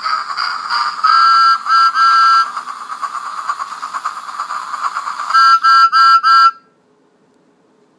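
Battery-powered motorized Thomas the Tank Engine toy running, its motor and plastic wheels giving a steady rattling whirr. Its whistle toots three times about a second in, then four quick toots near the end, and everything cuts off suddenly.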